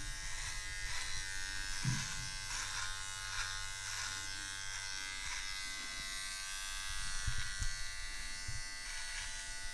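Electric beard trimmer running with a steady buzz while it is drawn through beard hair along the neckline. Short cutting strokes come about every half second or so over the motor's hum.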